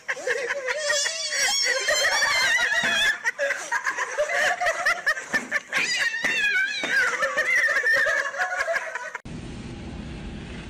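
People laughing hard, high-pitched and wavering, for about nine seconds. It cuts off suddenly near the end, and a quieter steady background hum takes over.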